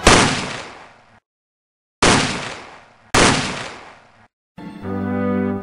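Three heavy cinematic boom hits, each a sudden bang dying away over about a second, with dead silence between them. Brass music starts near the end.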